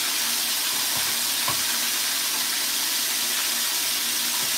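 Flour-coated chicken wings deep-frying in a pot of oil, a steady loud sizzle. The oil is too hot.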